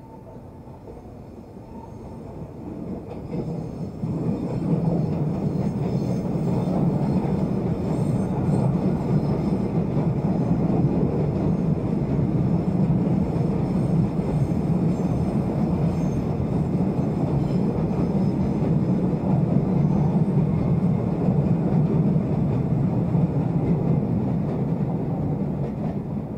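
Electric commuter train running along an elevated viaduct: a steady rumble of wheels on rail that builds over the first few seconds and then holds loud as the cars roll past.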